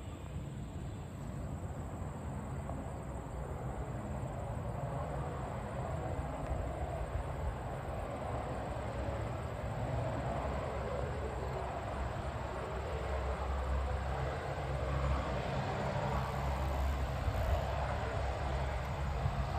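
Cessna 208B Grand Caravan's PT6A turboprop engine running as the aircraft rolls along the runway, a steady drone that grows gradually louder.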